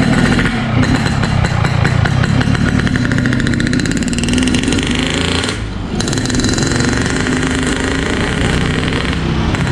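Yamaha RX King 135cc two-stroke single running loud through an aftermarket Boban 'ngorok' exhaust, with a brief drop in level about halfway through.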